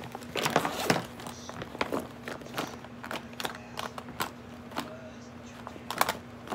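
Rustling of a clear plastic bag and light clicks and clatter of small makeup items being rummaged through and handled, busiest in the first second, then scattered single clicks. A faint steady hum sits underneath.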